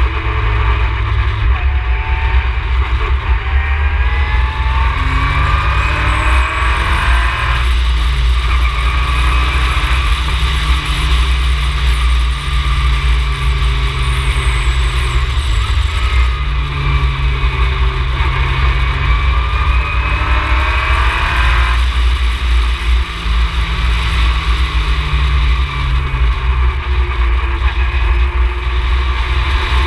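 Ginetta G20 race car engine under load, its pitch climbing steadily through the revs and dropping sharply twice (about a quarter of the way in and again about two-thirds through) before climbing again, over a deep steady rumble.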